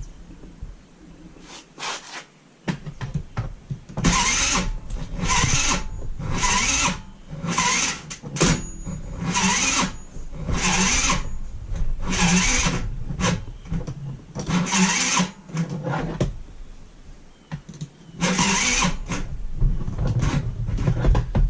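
Taotao scooter's small engine being cranked over in a string of short tries, about ten bursts roughly a second apart, without catching. The owner says the starter is bad.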